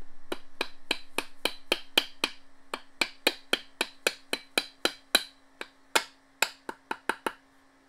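Rapid light hammer taps, about three to four a second, driving an axle oil seal deeper into a Polaris Magnum 330 front differential housing with a seal driver, seating it lower so its lip rides the axle properly.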